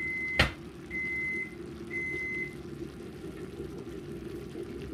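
An electronic beeper sounding a single high steady tone, three beeps about half a second long at roughly one-second intervals, stopping after about two and a half seconds. A sharp knock comes about half a second in, over a low steady rumble.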